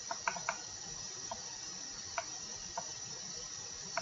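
Computer mouse clicking, a handful of short, irregularly spaced clicks over a steady background hiss.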